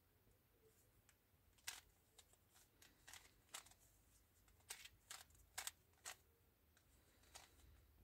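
Stickerless 3x3 speed cube being turned by hand: soft, sharp clicks of its plastic layers snapping round, about a dozen at an irregular pace, bunched in the middle.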